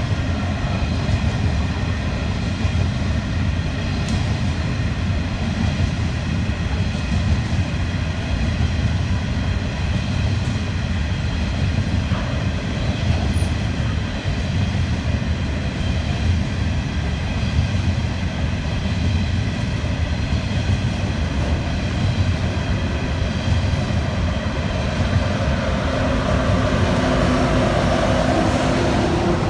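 Empty coal hopper wagons rolling past on steel wheels, a steady rumble with faint steady ringing tones above it. In the last few seconds the mid-train Pacific National TT-class diesel locomotive comes by, and its engine adds a low hum over the wheel noise.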